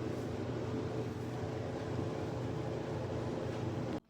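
Clothes dryer running: a steady mechanical hum and whoosh that cuts off suddenly near the end.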